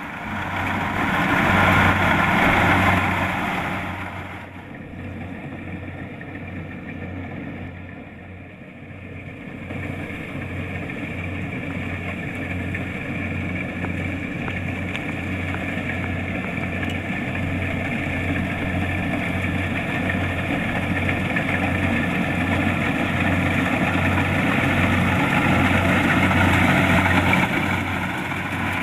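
Kubota DC-70 Plus rice combine harvester running, its diesel engine giving a steady low, regular pulsing under a spread of machine noise. Louder for the first few seconds, it drops about four seconds in and builds back up from about ten seconds in.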